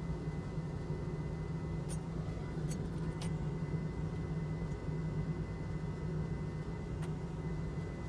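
Steady low machine hum with a faint high whine over it. A few light clicks come about two to three seconds in and again near the end.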